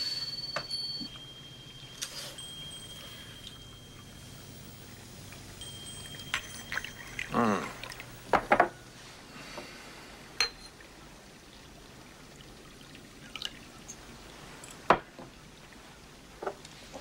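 Sake poured from a small ceramic flask into little ceramic cups, with sparse sharp clinks of cups and dishes set on the table, and a short sound falling in pitch about seven seconds in.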